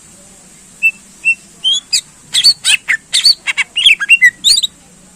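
Green leafbird (cucak ijo) singing: two short whistled notes about a second in, then a fast run of loud, sharp notes sweeping up and down for about three seconds before it stops.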